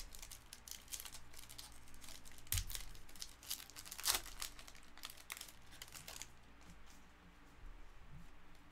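Foil wrapper of a Panini Legacy Football card pack being torn open and crinkled by hand: rustling with sharper crackles, dying down about six seconds in.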